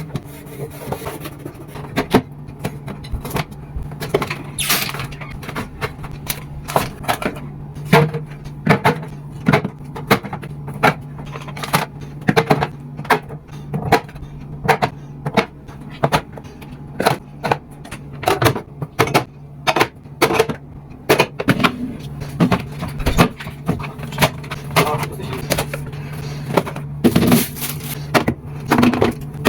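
Frequent irregular knocks, clicks and clatters of kitchen items being handled during cleaning, with brief swishes, over a steady low hum.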